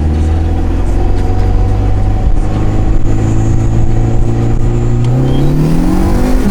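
Dodge Neon SRT-4's turbocharged 2.4-litre four-cylinder engine pulling hard under acceleration, heard from inside the cabin. The revs climb slowly at first, then rise quickly for the last second or so and drop sharply at the end as it shifts.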